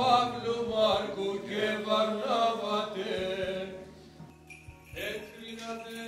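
Male voices singing Byzantine Orthodox church chant in two phrases, with a brief pause between them.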